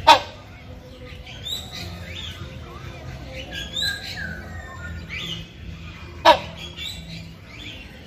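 Buceros hornbill giving two loud, short, harsh calls, one right at the start and another about six seconds in, which the uploader describes as a male's mating call to the female. Softer high chirps come between the calls.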